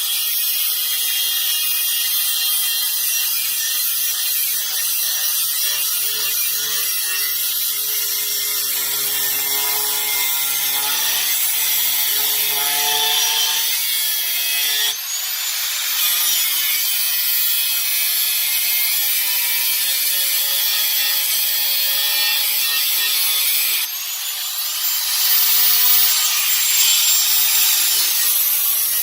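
A power tool cutting through the car's sheet-metal floor pan above the fuel tank, opening an access hole to the fuel pump. It runs as a continuous harsh, high-pitched cutting noise whose pitch shifts abruptly twice, about midway and again near the end.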